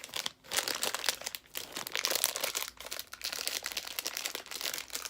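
Crinkling and crackling of plastic packaging handled by hand, irregular and continuous.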